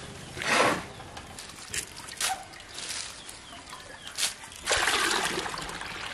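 Water splashing and pouring into a large metal pot of chopped leaves: a loud splash about half a second in, a few short splashes, then a longer pour near the end.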